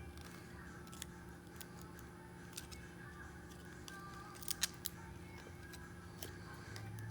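Small sharp clicks and snaps of a smartphone's parts being pried apart with a tool. A few are scattered, with a quick run of three about halfway through, over a faint steady hum.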